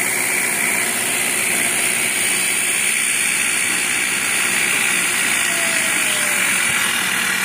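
Bridgeport-style milling machine running a 1/2-inch solid carbide end mill through a light finishing pass, about 4 thou, along the sidewall of a silicon bronze bar. The cut is steady and even, over a constant high hiss of compressed air blowing the chips clear.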